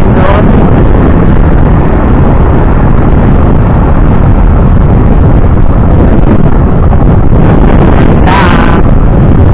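Loud, steady wind buffeting the microphone of a camera carried by a moving rider, with road and traffic noise beneath.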